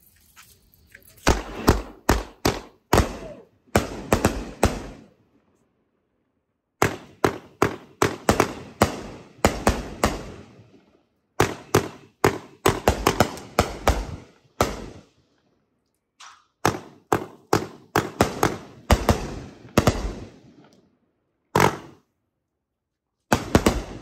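Consumer firework cake, a 23-shot Pyro Hero repeater, firing: volleys of sharp shots in quick succession, several a second, with short pauses between volleys.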